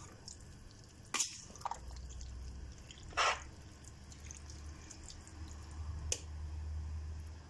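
Spatula stirring a stainless steel pot of thick eggplant, green pepper and tomato sauce that is coming to the boil, giving a few separate wet squelches and taps about one, three and six seconds in, over a faint low hum.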